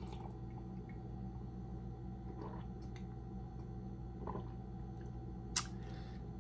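Steady low room hum with faint mouth sounds of someone sipping and tasting coffee from a mug, and one sharp click near the end.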